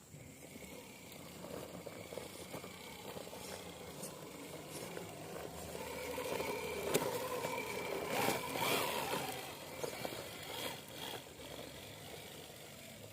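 RC scale model truck driving through mud: a faint motor and drivetrain whir with scraping and squelching from the tyres, growing louder in the middle and fading near the end.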